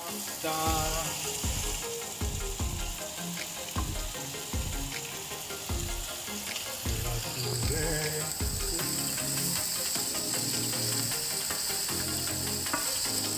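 Diced bacon and chopped onion sizzling in a nonstick frying pan, stirred now and then with a wooden spatula. The sizzle grows louder about halfway through.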